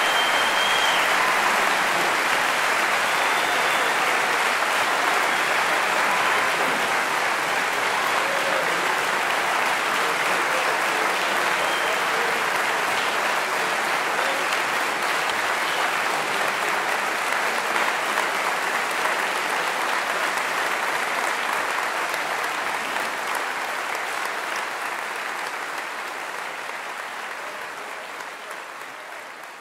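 Audience applauding steadily, the applause fading out gradually over the last several seconds.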